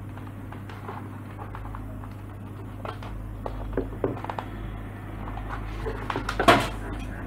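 Plastic case of a membrane gaming keyboard being handled and turned over, with scattered light knocks and a louder clatter about six and a half seconds in, as its cable is pulled through the cable-management channels underneath.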